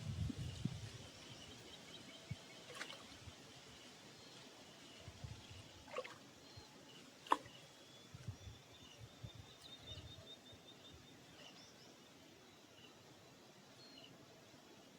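Faint outdoor ambience with small birds chirping and trilling. There are low bumps in the first second and a few sharp clicks, the loudest about seven seconds in.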